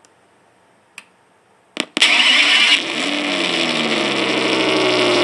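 Recorded motorcycle engine-start sound effect played loudly through the loudspeaker of a startup sound module. After a faint click about a second in, the engine catches with a sudden burst about two seconds in, then runs with its pitch slowly falling as it settles toward idle.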